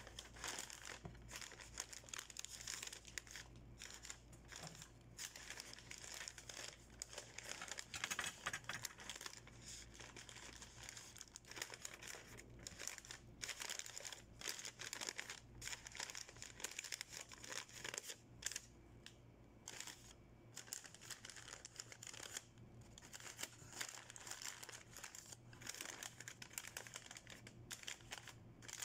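Quiet, irregular crinkling and rustling of flower wrapping paper being folded and gathered around a bouquet by hand.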